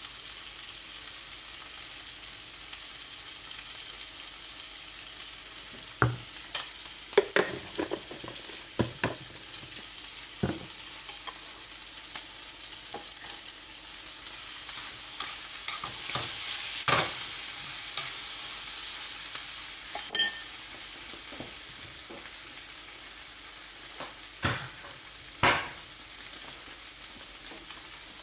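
Food sizzling in a frying pan, with a utensil knocking and scraping against the pan as it is stirred. The sizzle grows louder for a few seconds midway, and a single sharp clink rings out about twenty seconds in.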